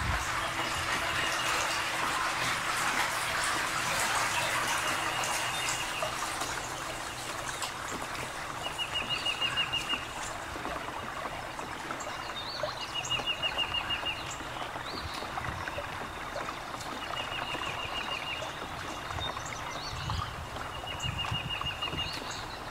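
Water lapping and splashing, loudest for the first few seconds, while a songbird sings a short, fast trill about every four seconds.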